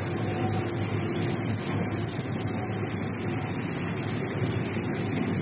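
Steady running noise of a Gallus label printing press line and its automatic unwinder: a constant mechanical hum with faint steady tones under an even high hiss.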